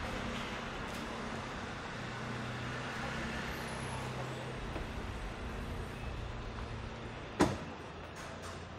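Steady low hum of vehicle traffic on a city street. A single sharp knock about seven seconds in stands out as the loudest sound.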